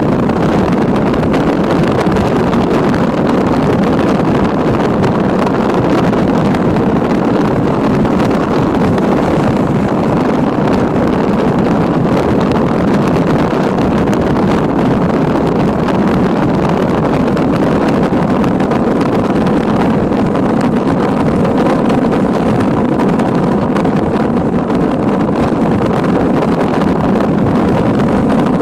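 Strong wind rushing over the microphone of a moving car, a loud, steady roar of air mixed with road noise.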